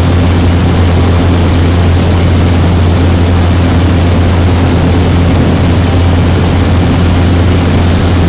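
A boat's 115-horsepower outboard motor running steadily at planing speed: a loud, steady low drone with a rush of wind and water over it.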